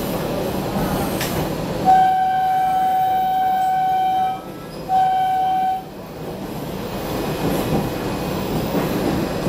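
Batara Kresna railbus horn sounding one long blast of about two and a half seconds, then a short second blast, over the steady running noise of the railbus heard from inside the carriage.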